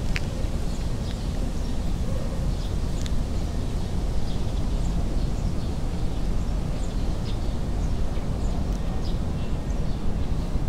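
Black cat purring as it is stroked: a steady low rumble, with faint short bird chirps above it.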